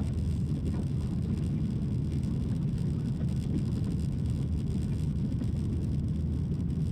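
Airliner cabin noise in flight: a steady low rumble of the jet engines and airflow, unchanging throughout.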